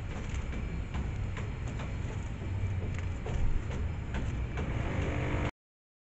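A steady low outdoor rumble picked up by a wildlife camera's microphone, with faint scattered short ticks and chirps over it. It cuts off abruptly about five and a half seconds in.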